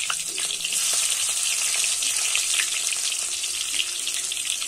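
Chopped green chillies and cumin seeds sizzling in hot oil in a kadhai: a steady sizzle with many small crackles.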